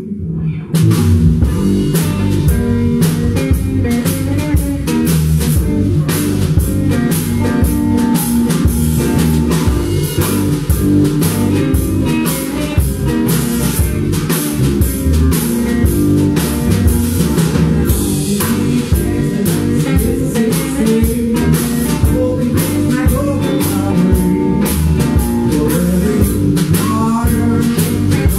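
Blues band playing live: electric guitar and drum kit kick in together about half a second in and carry an instrumental section with a steady beat.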